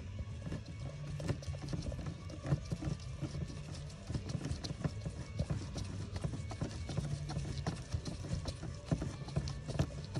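Quick, irregular clicking of a screwdriver on a long extension turning and tightening a screw in the dashboard trim, over a low steady hum.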